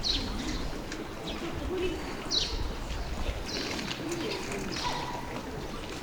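Pigeons cooing in soft low warbles, with small birds giving sharp, falling chirps every second or so over a low outdoor rumble.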